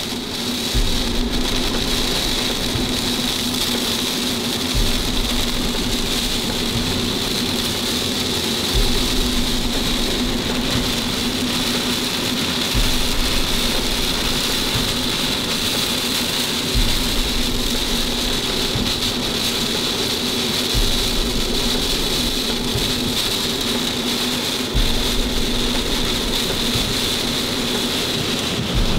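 Heavy rain pounding on a stopped vehicle inside a severe storm's hail core, a loud steady downpour. A deep low swell comes and goes every four seconds.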